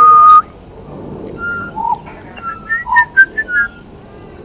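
Pied butcherbird singing for food: one loud, held whistled note, then a run of short, varied fluted notes that jump up and down in pitch.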